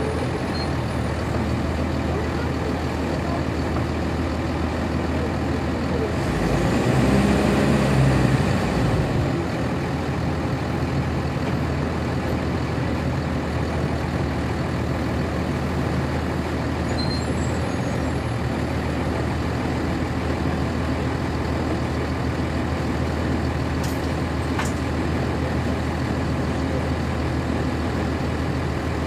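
Interior sound of a NovaBus RTS transit bus, its Cummins ISC diesel engine running steadily at low speed, heard on board. The sound swells louder for a few seconds about seven seconds in, and two short sharp clicks come about three-quarters of the way through.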